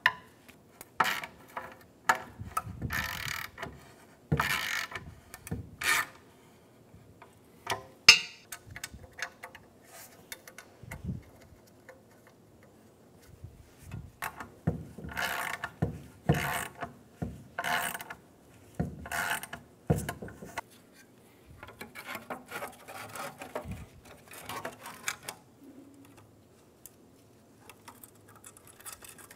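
Thin, rusted sheet-metal exhaust heat shields scraping and clanking against the catalytic converter and a wooden workbench as they are unbolted and handled, in irregular bursts of a second or two with short pauses between.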